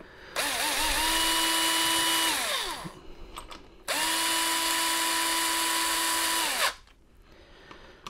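Cordless drill running in two steady bursts of about two and a half seconds each, driving the mounting screws into a deadbolt's mounting plate. The motor whine falls in pitch as the first run winds down, and a few light clicks come between the runs.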